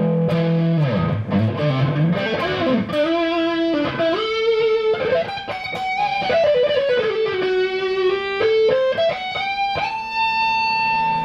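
Electric guitar played through an EGO TM2 overdrive pedal into a guitar amp, giving a distorted tone. It plays a melodic lead line with bent notes and vibrato, ending on one long held note near the end.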